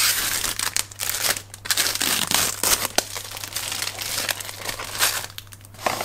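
Plastic wrapping being peeled off a new keyboard, crinkling and crackling irregularly with a few short pauses between pulls.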